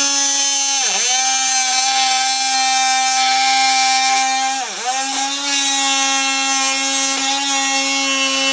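Oscillating multi-tool running at a steady pitch while cutting laminate flooring. Its pitch dips briefly twice as the blade bogs down in the cut. The blade is worn, "pretty much shot".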